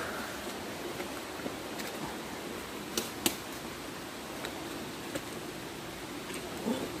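Steady rushing of a nearby mountain stream, with a few sharp crackles of dry bamboo leaves underfoot, the loudest two about three seconds in.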